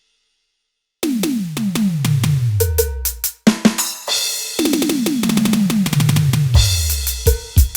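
Electronic drum sounds played on a Roland SPD-30 Octapad: after a second of silence, two quick fills of synth tom strokes, each stroke falling in pitch, followed near the end by sharp strokes with a short ringing tone.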